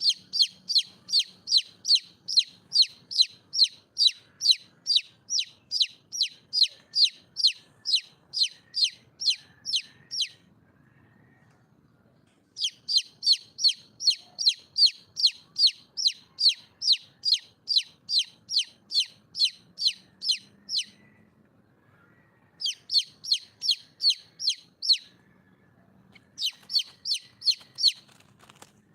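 Red junglefowl hen calling for a mate: a fast, even series of sharp, high, downward-slurred notes, about two and a half a second, in four runs separated by short pauses.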